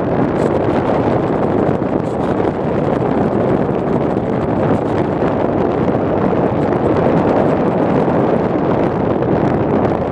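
Steady, loud rush of wind buffeting the microphone of a camera carried on a flying RC plane.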